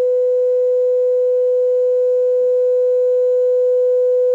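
Steady sine test tone near 500 Hz played loud through car-audio mid-bass speakers, with a row of fainter overtones above it. The amplifier is driven hard by the tone while its output voltage is measured to set the mid-bass limiter.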